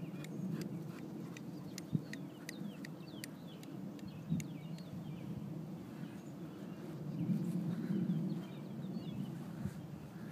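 Small birds chirping in short, scattered calls over a steady low rumble that swells for a second or so about seven seconds in.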